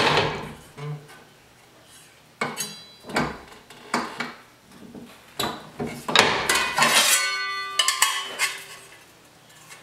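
A hand-operated box-and-pan sheet-metal brake clanks and knocks as its bending leaf and clamp are worked, with a loud clank at the very start and single knocks roughly once a second after it. Near the end the bent sheet-metal patch panel rattles and rings briefly as it is lifted out of the brake.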